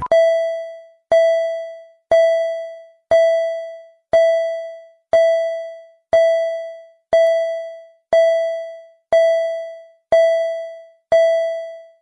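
A single-pitched electronic chime, struck twelve times at a steady one per second, each tone ringing out and fading before the next.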